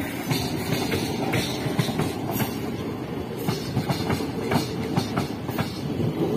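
Indian Railways passenger coaches rolling past at close range: a steady rumble with rapid, irregular clicks of the wheels over rail joints.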